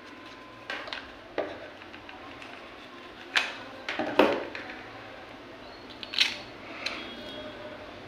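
Hands handling a small DC motor and a cardboard boat hull on a tabletop: a handful of separate light knocks, taps and scrapes, the clearest ones a little past three seconds, around four seconds and around six seconds in.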